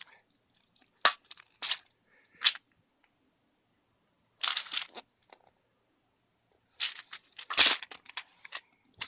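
Handling noise from accessories and their packaging being moved about: scattered short clicks and crinkling rustles. They come in three groups, with a busier, louder cluster of clatter and crinkling near the end.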